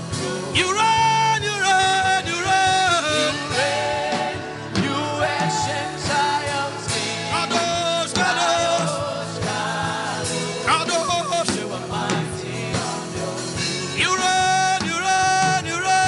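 Christian worship music: a voice singing long held, wavering notes over a steady instrumental backing.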